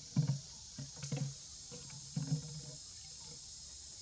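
Young macaques making a few short, low grunts, the first about a quarter of a second in being the loudest, over a steady high hiss.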